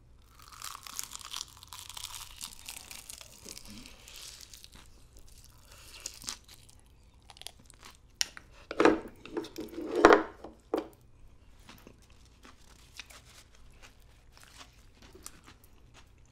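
Crisp roasted seaweed (gim) crackling and tearing for the first few seconds as a seaweed wrap of pickled avocado is bitten, then chewing with small wet mouth clicks and a couple of louder mouth noises about nine and ten seconds in.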